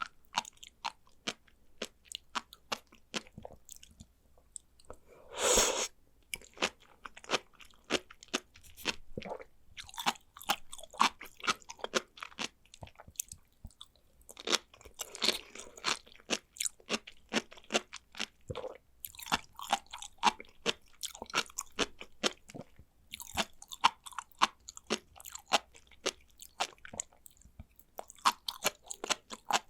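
Chewing of sea grapes: a steady run of small, crisp pops and clicks as the seaweed's little beads burst between the teeth, with a louder crunch about five seconds in.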